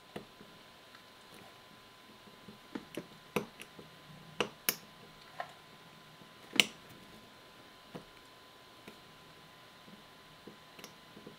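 Faint, irregular small clicks and ticks of an X-Acto knife blade tip prying at the plastic latch tabs of a tiny four-pin wiring plug to free its metal contacts, with one louder click a little past halfway.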